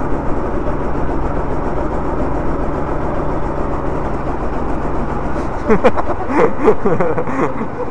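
Go-kart engines running with wind buffeting the microphone; about six seconds in the wind drops away and the engines of the karts close by rise and fall in pitch.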